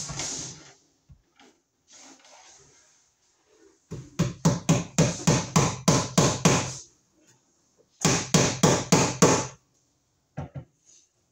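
Hammer striking wood in quick runs: about a dozen blows at roughly four a second, a short pause, then about six more. A single knock and some handling noise come first.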